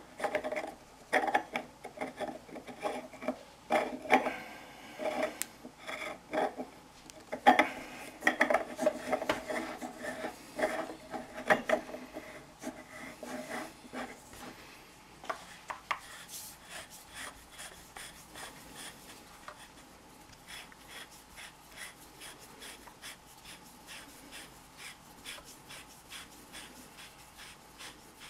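A small brass air-rifle valve fitting being handled and screwed by hand into its metal air cylinder: sharp metal clinks with a short ring through the first half. About halfway, these give way to a run of fainter quick ticks and scrapes as the threads turn.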